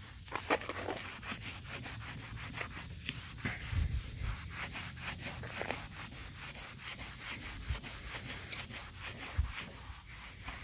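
Microfiber towel rubbed quickly back and forth by hand over a car's painted roof, buffing polish into weathered, dull paint. The strokes come steadily, several a second.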